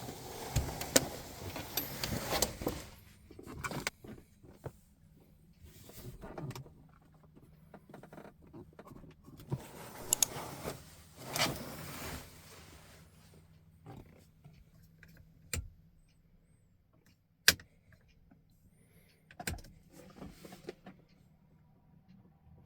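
Handling noises: irregular rustling and shuffling with scattered sharp clicks and knocks, the loudest a single sharp click about two-thirds of the way through, over a faint steady low hum.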